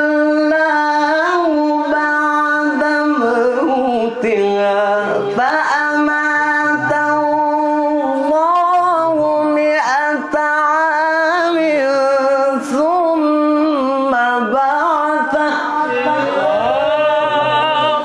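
Unaccompanied Quran recitation by a young male voice in the melodic tilawah style: one long, ornamented melisma of held notes with quick turns and wavering pitch.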